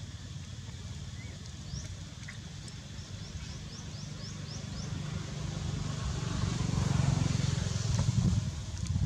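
Outdoor ambience: a steady low rumble that swells about six to eight seconds in, with a bird giving a quick run of about nine short, high, rising chirps a couple of seconds in.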